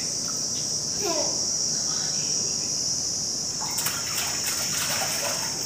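Toddler splashing water with his hands in a metal tub, a cluster of splashes about four seconds in, over a steady high chirring of crickets. A short falling vocal sound comes about a second in.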